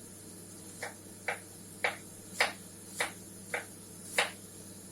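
Kitchen knife cutting red cabbage on a cutting board: about seven sharp chops, roughly two a second, starting about a second in.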